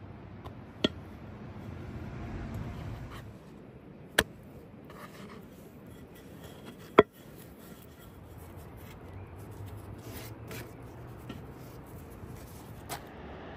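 Wooden rolling pin rolling out thin flatbread dough on a floured wooden board, a soft rubbing sound broken by four sharp knocks, the loudest about seven seconds in.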